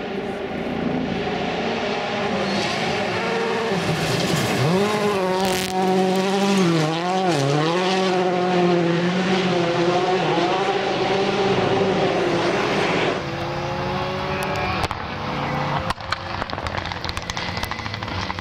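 Rally car engines at speed on a stage: the engine note rises and dips with throttle and gear changes. About thirteen seconds in it switches abruptly to another car's lower engine note.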